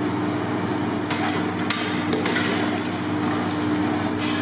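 A steady low machine hum runs under a few sharp clanks of steel cooking utensils, about three in the first half.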